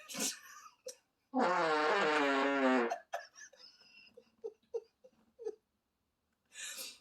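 Recorded fart sound effect, played back: one long, buzzing, pitched fart lasting about a second and a half, starting about a second in. Its pitch wavers slightly and it ends abruptly.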